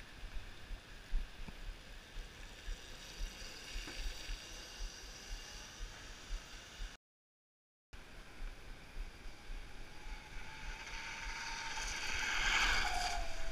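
Traffic on a rain-wet street: a steady hiss of tyres on wet asphalt, cutting out for about a second midway, then swelling near the end as a vehicle passes close, its whine dropping in pitch as it goes by.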